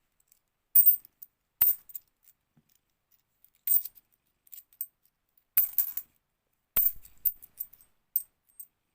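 Cupro-nickel 50p coins clinking as they are set down one at a time onto a pile, a dozen or so separate metallic chinks at an irregular pace, some coming in quick pairs.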